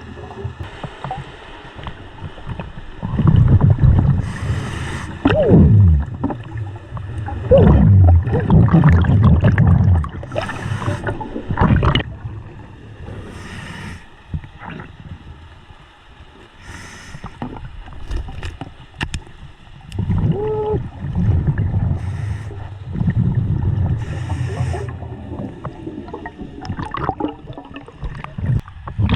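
Scuba diver breathing underwater through a regulator: a short hiss on each inhale and a long bubbling rumble on each exhale, repeating every few seconds.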